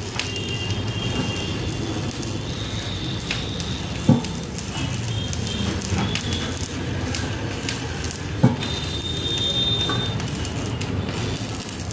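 Hand sanding of a metal motorcycle fuel tank with sandpaper: a continuous scratchy rubbing, broken twice by a short dull thump about four seconds apart.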